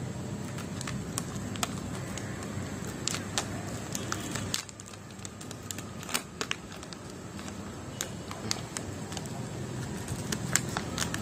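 Scissors snipping and a foil snack packet crinkling as it is cut open: a scattered string of sharp clicks and rustles. Under them runs a steady low background rumble that drops for a few seconds about halfway through.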